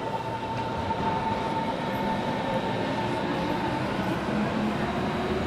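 Train running on rails, a steady dense rumble with a thin whine on top that fades out about four seconds in.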